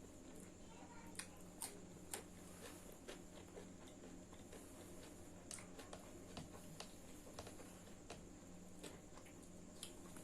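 Faint eating sounds while eating chicken fried rice: scattered soft clicks and smacks, about ten in all, at uneven intervals over a steady faint hum.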